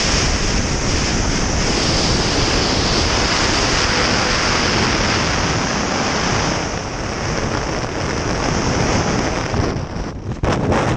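Steady, loud rush of freefall wind buffeting the camera microphone. About ten seconds in, the rush drops and turns choppy and irregular as the parachute deploys and its canopy opens.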